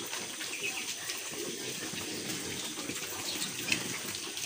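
Several piglets feeding together at a trough, a steady mass of wet chewing and slurping.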